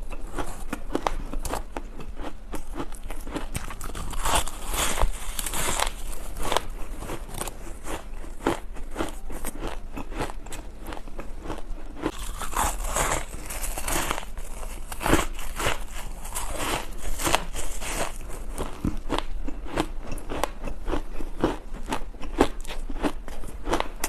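Close-miked biting and chewing of ice chunks: dense crisp crunching and crackling, with a louder bite every second or two.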